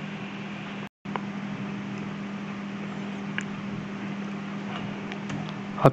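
Steady low mechanical hum with a hiss, room background noise, and a few faint clicks. It drops out completely for a moment about a second in.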